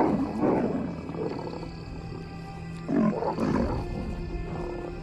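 Lions snarling and growling in a fight over a carcass, in two outbursts: one at the start and one about three seconds in. Background music runs underneath.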